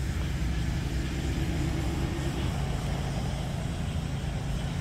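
A vehicle engine idling steadily close by, a low, even hum with a fainter higher tone that fades out about halfway through.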